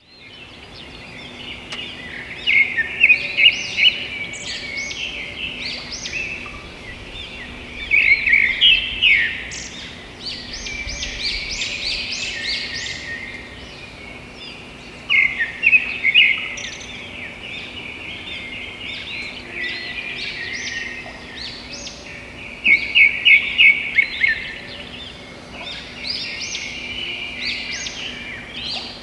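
Small birds chirping and twittering, with several bursts of rapid, loud chirps.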